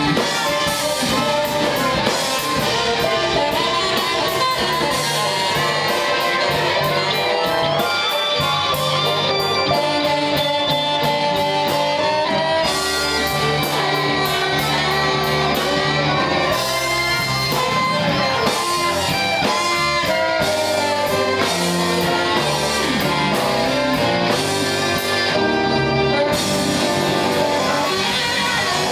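Live blues band playing a slow blues instrumental passage, with electric guitar taking the lead over a drum kit.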